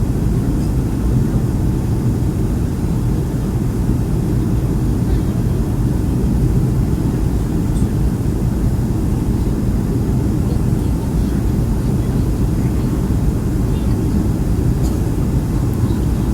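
Steady, deep cabin noise inside a Boeing 757 in flight: the engines and airflow as heard from a window seat in the rear cabin.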